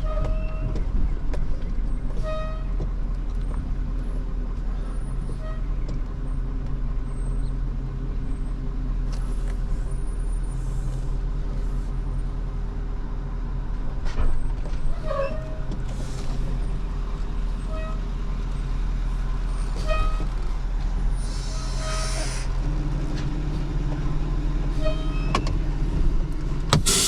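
Vehicle engine idling steadily, its note stepping up slightly about 22 seconds in, with short high chirps and clicks now and then.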